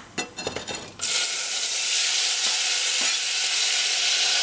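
Hot oil sizzling steadily in a stainless steel saucepan with dried basil frying in it. The sizzle starts abruptly about a second in, after a few light knocks.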